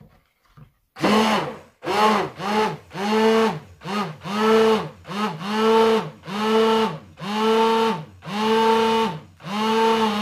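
Electric stick blender pulsed on and off about a dozen times, starting about a second in. Each pulse is a motor hum that climbs as the blade spins up and drops as it stops. It is blending hot oil and water phases together to emulsify them into lotion.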